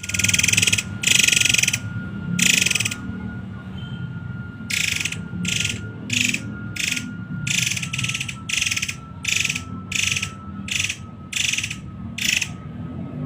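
Murai air (forktail) calling: harsh, high-pitched rattling calls, first a couple of longer ones, then after a short pause a rapid regular series of about two calls a second.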